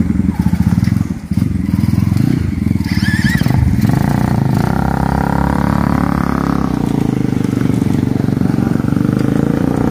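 Dirt bike engine revving hard as the bike churns through deep mud. It runs at a choppy low rev at first, climbs in pitch about four seconds in, then holds a steady high rev.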